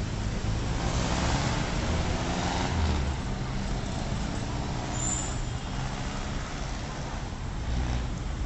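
Busy city intersection traffic: engines of cars, jeepneys, motorcycles and a motorcycle tricycle running past in a steady rumble. A brief high squeal comes about five seconds in.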